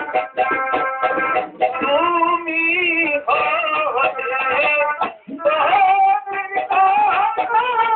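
Song music: a quick plucked-string rhythm, then a singer holding long, wavering notes from about two seconds in.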